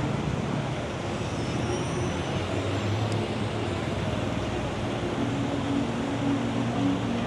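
Steady city street traffic noise from passing cars and buses, with a low engine hum that swells about three seconds in and again in the last couple of seconds.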